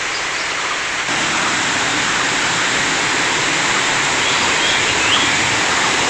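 Steady rushing of a rocky forest stream running high with rainy-season water, a little louder from about a second in.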